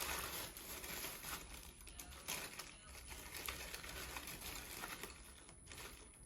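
Light crinkling and rustling of plastic packaging being handled, with a few faint clicks.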